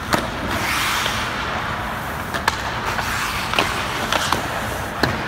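Hockey skates scraping across the ice, loudest about a second in, with several sharp cracks of sticks and pucks striking.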